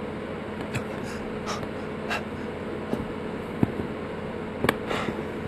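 Soft footsteps, a light tap about every 0.7 seconds with two close together near the end, over a steady low room hum.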